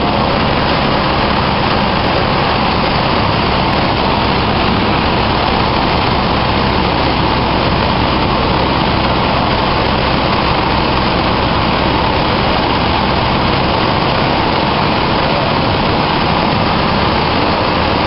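Cessna 152's four-cylinder Lycoming O-235 engine and propeller droning steadily in level flight, heard inside the cabin, with a rushing hiss over the low engine hum.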